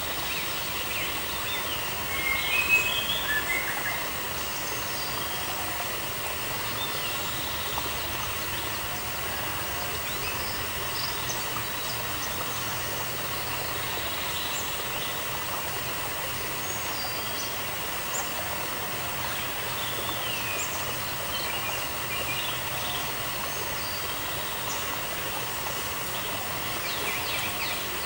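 Outdoor ambience: a steady background hiss with scattered short bird chirps and calls, a louder cluster of calls about three seconds in.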